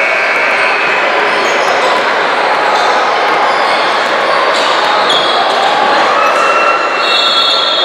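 Youth basketball game in play: steady crowd noise and chatter, with sneakers squeaking on the court and a basketball bouncing. A high-pitched squeak comes near the start and another near the end.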